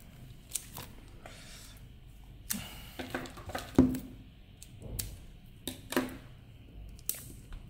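A book's plastic wrapping being picked at and torn open by hand: scattered crinkles, clicks and taps.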